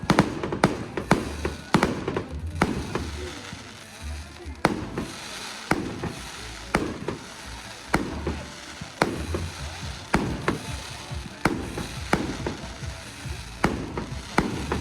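Fireworks display: aerial shells bursting in an irregular series of sharp bangs, about one loud bang a second with smaller pops between, each trailing off in an echo.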